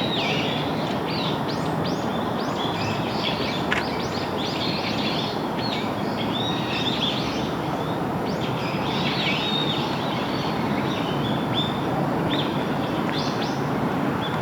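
Chinese hwamei calling and singing: a busy, continuous run of short whistled and sweeping notes, over a steady rushing background noise.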